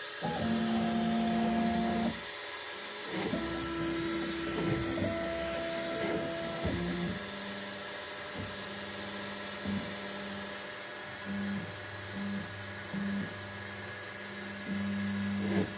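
Bambu Lab X1 Carbon 3D printer's motors whining at steady pitches as the toolhead moves, the pitch jumping with each move over the first seven seconds. After that a lower hum cuts in and out in short spells, over a steady hiss. The printer is running its pre-print calibration, at the extrusion calibration step.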